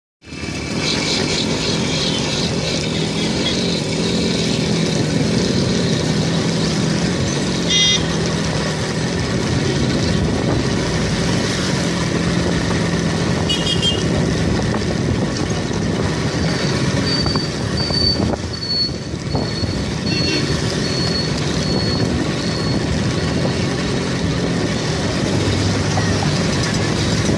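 Road traffic heard from a moving vehicle: a steady engine drone with wind and road noise. A couple of brief horn toots sound, and a row of short high beeps comes a little past halfway.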